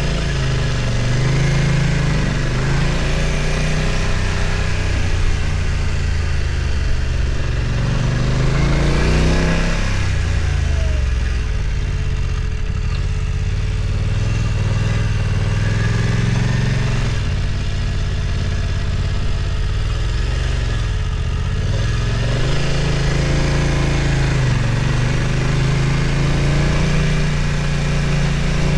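BMW F900 XR's parallel-twin engine running under way, its revs rising and falling several times, with a sharp rise and drop about eight to ten seconds in and another swing a little past twenty seconds.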